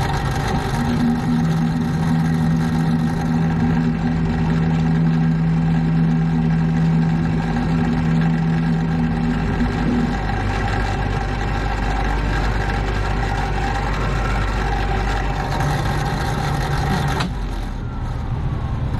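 AAON rooftop HVAC unit running, its compressor and fan motors making a steady, loud machine drone. A strong low hum sets in about a second in and stops about ten seconds in.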